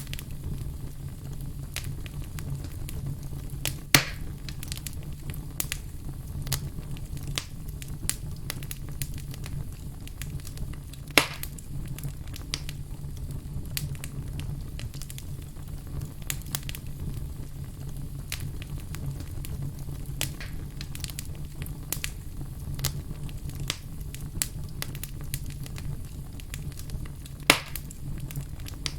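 Wood fire of burning logs crackling steadily over a low rumble, with frequent small snaps and three louder pops, about 4, 11 and 27 seconds in.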